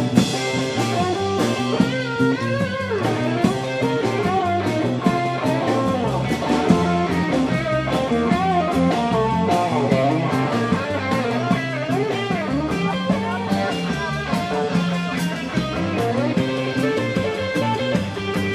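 Live rock band playing: electric guitars over a drum kit, with a steady beat.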